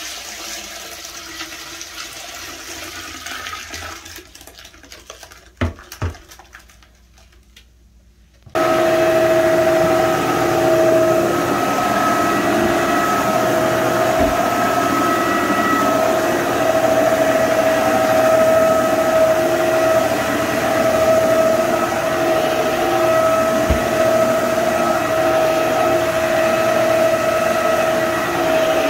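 A toilet flushing away a tank of dirty floor-cleaning water, a rushing that fades over several seconds, then two sharp knocks. About eight seconds in, a corded electric hard-floor scrubber switches on and runs steadily with a constant whine; this is the loudest sound.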